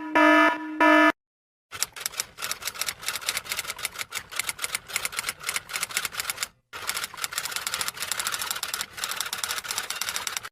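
Rapid typing: a fast, even run of sharp key clacks, with a short pause about halfway through. At the very start, the last two beeps of a pulsing electronic buzzer cut off after about a second.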